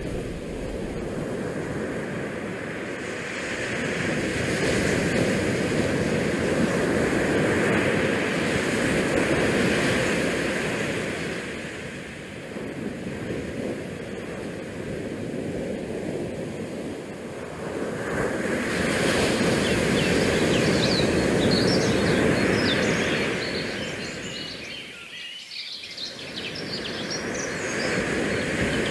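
Rushing outdoor noise of wind and small waves, swelling and fading every several seconds, with a few brief high chirps about two-thirds of the way through.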